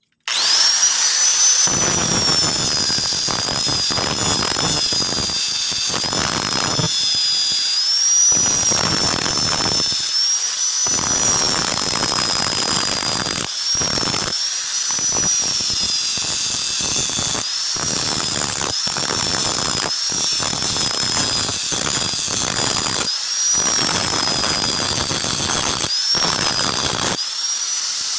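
Electric angle grinder spinning up at once and running with a high whine while its disc grinds the edge of a leaf-spring steel cleaver blade, throwing sparks. The whine sags each time the disc bites into the steel and climbs back as the load eases, many times over, with a coarse grinding hiss while the disc is in contact.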